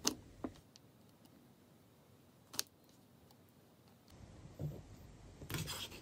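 Small plastic parts handled on a tabletop, a hot glue gun and a 3D-printed housing: a few sharp light clicks, three in the first three seconds, with hush between. Soft handling rustle, a light bump and more small clicks come near the end.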